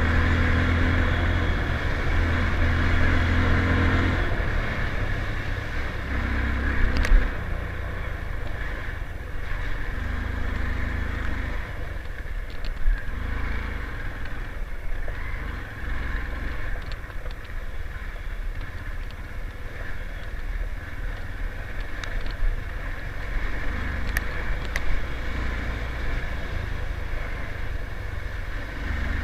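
Motorcycle engine running steadily at low speed while being ridden, easing off slightly about four seconds in, with a few sharp knocks along the way.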